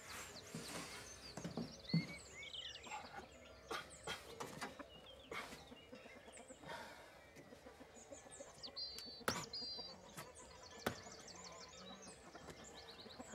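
Faint outdoor birdsong: small birds chirping and twittering in short, quick phrases, with a few sharp knocks or clicks, the loudest about nine seconds in.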